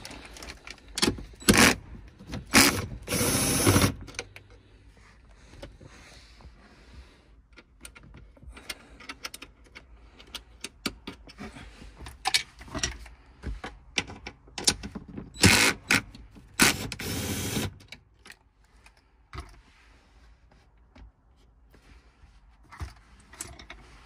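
A ratchet with a 10 mm socket working the shifter assembly's mounting bolts loose. It makes two spells of quick ratcheting clicks and short rattling runs, one at the start and one about halfway through, with quieter taps and handling in between.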